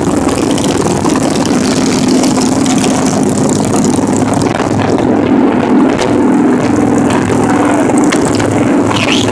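Cruiser motorcycles running at highway speed: a steady engine drone under heavy wind rush on the microphone.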